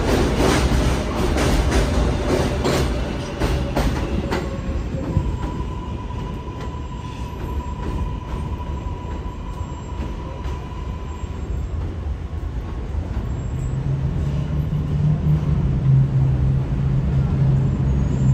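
NYC subway cars clattering over the rail joints of an elevated track as the train pulls out, fading after about four seconds and leaving a thin steady whine for several seconds. Near the end a second train approaching on the el rises into a low, growing hum.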